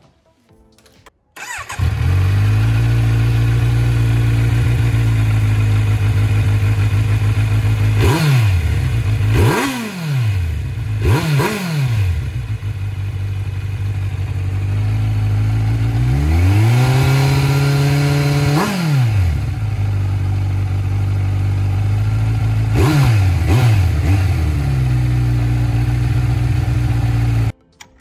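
Kawasaki Z900 inline-four idling through an Arrow Pro Race titanium slip-on exhaust with its dB-killer insert still fitted. It is revved with several quick throttle blips and one longer rev in the middle, settling back to idle each time. The sound cuts in about a second in and stops abruptly just before the end.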